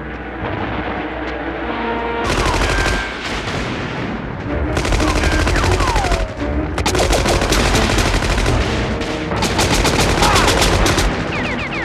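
Automatic gunfire from a staged combat scene: four long rattling bursts, the first about two seconds in, each lasting one to two seconds, over a low rumble.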